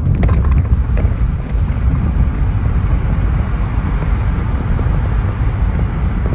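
Car driving at road speed, heard from inside the cabin: a steady low rumble of engine and tyre noise, with a few light clicks in the first second.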